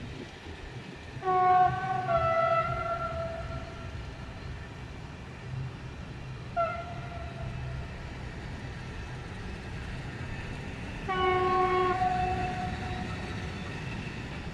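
Container freight wagons rolling past with a steady rumble. A train horn sounds three times over it: a long blast about a second in that steps slightly down in pitch, a short blast midway, and another long blast near the end, each sagging a little in pitch.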